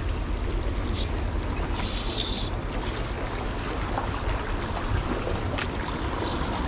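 Shallow creek water running over stones, with a low wind rumble on the microphone.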